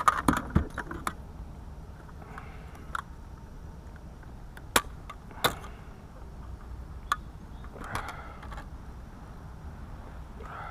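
Handling noises on a plastic fishing kayak as a pike is measured: a quick cluster of sharp clicks and knocks in the first second, then two single sharp clicks about five seconds in and a lighter one a little later, over a steady low background hum.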